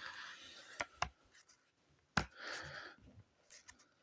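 Hands handling the speaker's packaging and accessories: rustling of paper or plastic with a few sharp clicks and taps, the loudest about halfway through and a quick cluster near the end.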